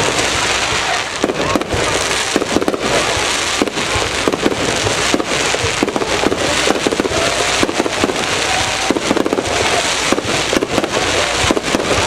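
Fireworks going off in quick succession: a dense, unbroken crackle of many sharp pops and bangs.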